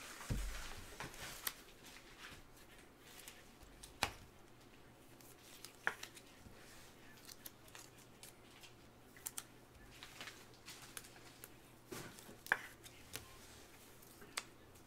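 Gloved hands handling trading cards from a 2022 Panini Select Draft Picks football box. A brief rustle at the start is followed by scattered sharp clicks and snaps as the cards are flicked and slid.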